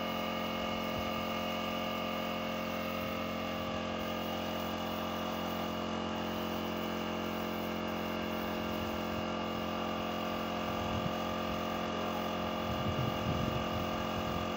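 Small portable air compressor running steadily, a constant motor hum with many steady tones, supplying air to a paint spray gun.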